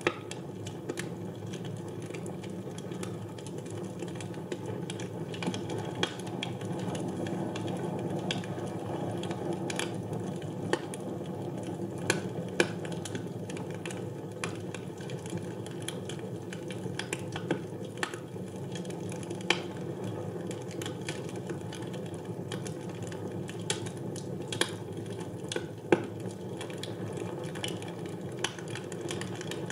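Wood fire burning in a fireplace: a steady low rush of burning with irregular sharp crackles and pops scattered throughout.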